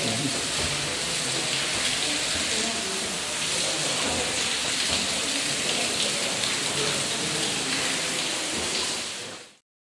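Water falling and splashing inside a limestone cave shaft, a steady rain-like hiss that cuts off suddenly near the end.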